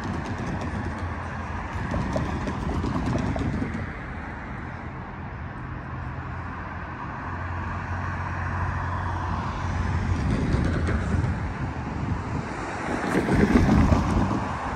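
Road traffic at a town intersection: cars driving past, with a low steady engine hum under the tyre noise. One car passes close and louder near the end.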